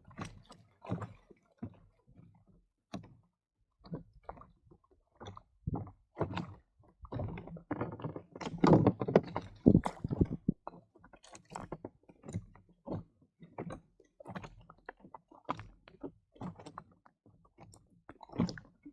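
Irregular knocks and thuds of fishing gear being handled in a kayak, busiest and loudest about eight to ten seconds in.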